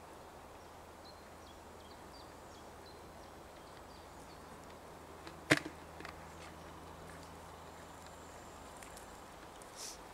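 A hoop-net fish trap being handled: one sharp click about halfway through, followed by a couple of lighter ticks. Behind it is a quiet forest background with faint high chirps early on, a faint steady low hum that stops near the end, and a brief soft rustle near the end.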